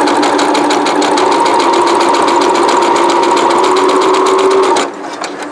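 Brother CE8080PRW computerized sewing machine stitching a light-duty denim hem at a steady speed: a steady motor whine over a fast, even rhythm of needle strokes. It stops abruptly near the end.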